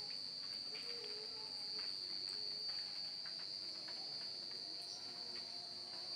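Crickets trilling without a break: one steady, high-pitched drone.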